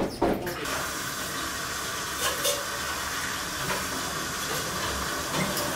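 Kitchen sprayer faucet running steadily into a stainless sink while a glass is rinsed, after a couple of light glass clinks at the start; the water cuts off just before the end.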